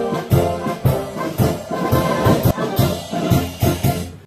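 Brass band music with a steady beat of about two a second, trombones and trumpets playing together. It cuts off abruptly at the end.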